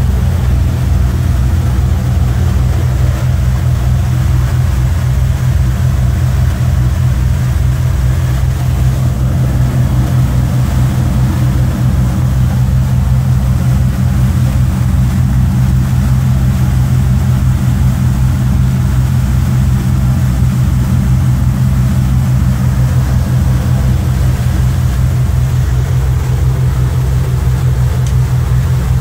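A motor boat's twin engines running steadily under way, a deep, even drone with a fine regular pulse, over a haze of water and wind noise.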